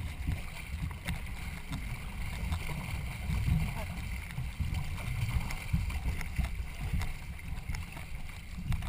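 Wind rumbling unevenly on the microphone over water noise from a boat on the water.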